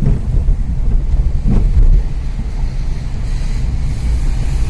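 Low rumble of a car driving, heard from inside its cabin, with wind buffeting the microphone and a brief louder thud near the middle.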